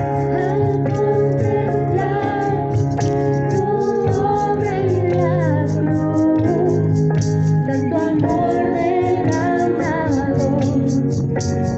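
Worship song: singing over keyboard or organ with a steady beat.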